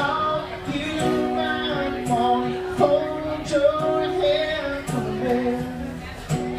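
Live acoustic guitar strumming under sung melody, with women's voices close by singing along to the song.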